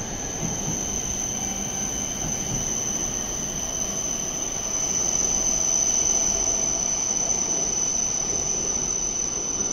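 Shinkansen train pulling out of the platform once its doors have closed: a steady high-pitched whine over a running rumble that grows louder about halfway through.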